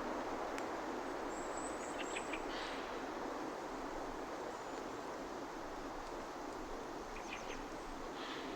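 Two short bursts of bird calls, a few quick notes followed by a harsher call, about two seconds in and again near the end, over a steady rushing outdoor background noise.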